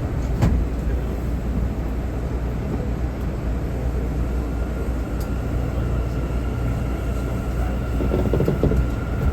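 R179 subway car running between stations: a steady low rumble, with a steady high whine coming in about four seconds in and a run of quick clicks from the wheels near the end.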